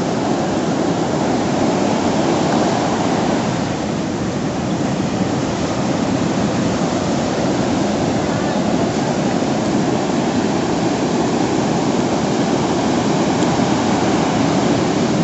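Ocean surf from a hurricane swell breaking along the beach: a steady, unbroken wash of waves.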